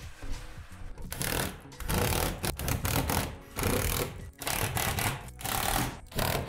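Cordless power driver running in about half a dozen short bursts, each under a second long, driving screws into the shed's plastic roof panels.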